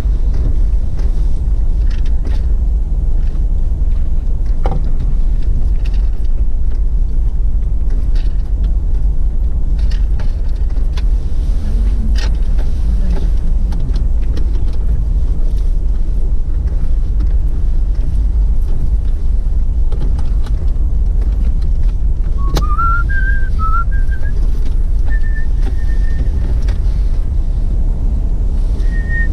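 Steady low rumble of a Toyota 4Runner V8 driving on a trail, with a few faint knocks. In the last several seconds someone whistles a short tune that steps upward and is then held on a high note.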